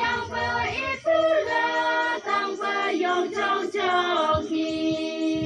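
A group of Naga women singing a folk song together, unaccompanied, in short sung phrases that settle into one long held note near the end.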